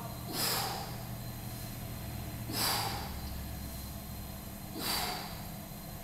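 A man's sharp, forceful exhales, three of them a little over two seconds apart, one with each kettlebell swing. Under them runs the steady low hum of the vibration training platform he stands on.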